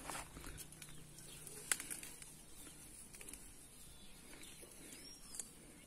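Faint rustling of soil and a few soft clicks and snaps as freshly dug cassava roots are pulled and handled by hand, with a single faint bird chirp near the end.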